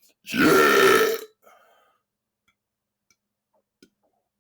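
A single loud, deliberate belch lasting about a second, with a falling pitch.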